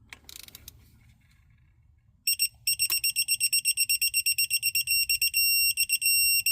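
Electronic beeper of a Quinn digital torque wrench sounding rapid, high-pitched beeps as a spark plug is tightened. The beeps run together into a steady tone for about a second near the end, the wrench signalling that the set torque of 13 ft-lb is reached. A few faint ratchet clicks come before the beeping.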